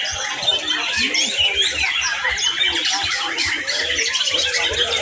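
Several white-rumped shamas singing at once: a dense, overlapping stream of whistles and chirps with no break.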